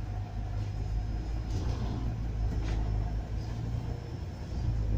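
Volvo B9 double-decker bus running along the road, heard from the top deck: a steady low rumble of its six-cylinder diesel engine and drivetrain, with a few faint brief rattles.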